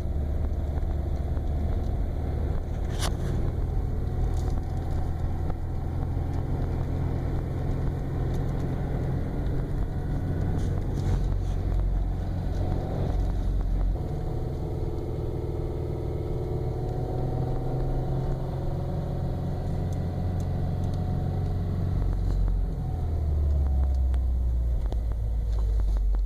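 2015 Subaru WRX's turbocharged 2.0-litre flat-four engine pulling in gear while the throttle is eased on and off, its pitch slowly rising and falling over a steady low rumble, with one sharp click about three seconds in. This is the driving condition in which the owner hears a high-pitched rasping noise from the engine.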